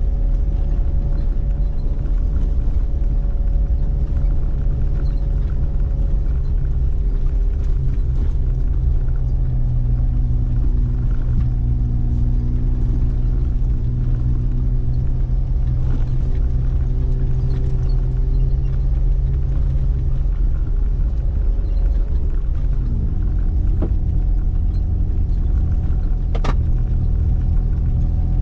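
Mitsubishi Pajero's 3.0-litre V6 petrol engine running at low, steady revs as the 4x4 crawls along a dirt track, heard from inside the cabin as a deep rumble; about 23 seconds in the engine pitch drops as the revs fall. A short click near the end.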